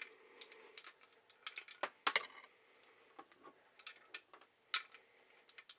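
Scattered light clicks and taps of small hard objects being handled and set down, loudest about two seconds in and again near five seconds.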